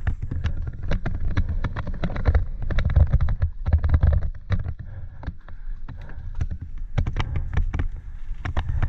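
Mountain bike descending a rough dirt trail: wind rumbling on the helmet-mounted microphone, with a steady, irregular clatter of knocks and rattles as the bike runs over bumps.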